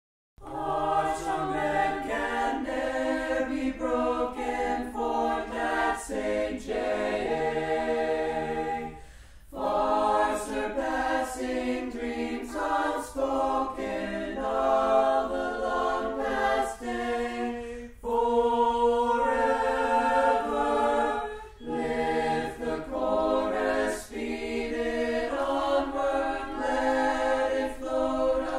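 Choral music: a choir singing, in sustained phrases with three short breaks between them.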